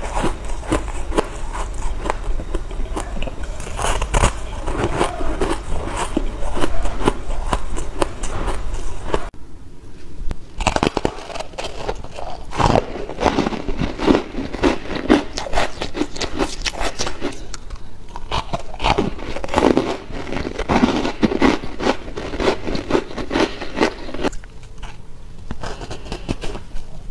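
Close-miked biting and chewing of shaved ice: a dense, continuous run of crisp crunches. The background changes abruptly about nine seconds in and again near the end.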